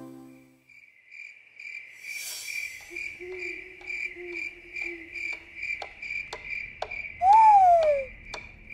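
Cartoon night-time ambience: crickets chirping in an even pulse, about three chirps a second, with faint regular clicks and a low held tone in the middle. Near the end a loud falling tone glides down for under a second.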